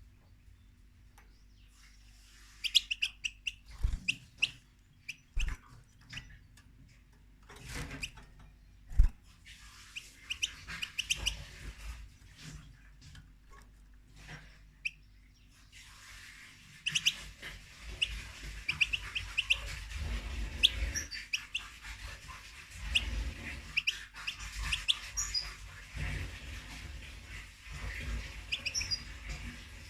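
European goldfinch chirping in short, quick calls, with scattered knocks in the first half. About halfway through, a steady hiss joins under the chirping.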